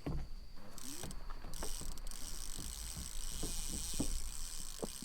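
Fishing reel ratcheting steadily as line is pulled off it, the sign of a catfish taking the bait and running, with a few light knocks of handling underneath.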